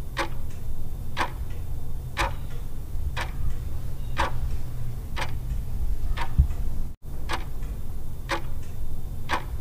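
Ticking-clock countdown sound effect, about two ticks a second with strong and weaker ticks alternating in a tick-tock, over a low steady hum. The ticking breaks off for an instant about seven seconds in.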